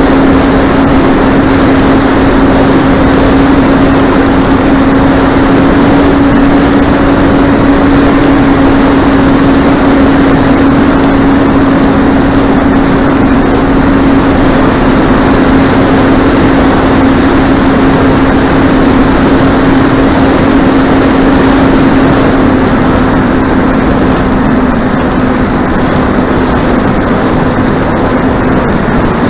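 Motor and propeller of a Skipper 700 mm FPV model plane, heard from its onboard camera in flight: a steady hum over heavy wind rush, easing slightly and dropping a little in pitch near the end.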